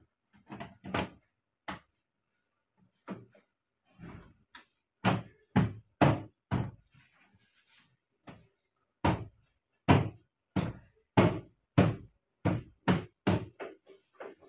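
Sharp knocks of hands striking the plastic inner door trim panel of a 2003 Suzuki Swift's rear door, pressing its clips home as the panel is refitted. The knocks come in runs of about two a second, loudest in the middle and latter part.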